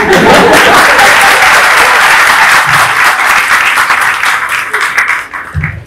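Audience applause: many people clapping together, breaking out all at once and dying away near the end.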